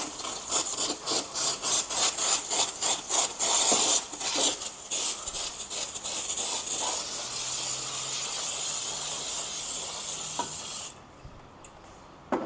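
Aerosol brake cleaner spraying: quick repeated spurts, about three a second, for the first few seconds, then one steady spray that cuts off suddenly about eleven seconds in.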